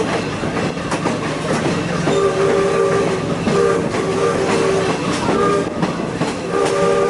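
Steam locomotive whistle sounding a series of short blasts of a chord of several tones, beginning about two seconds in, over the steady rumble and clatter of the train.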